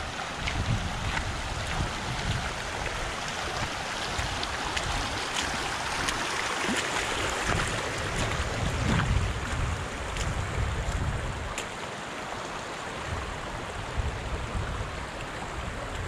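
Steady rush of flowing mountain water, with wind gusting on the microphone as an uneven low rumble.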